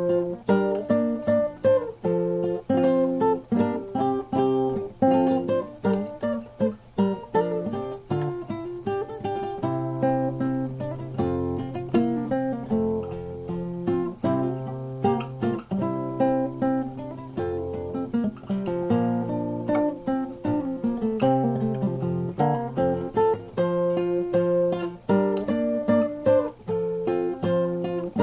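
Solo cutaway classical guitar, fingerpicked: a melody of single plucked notes over held bass notes.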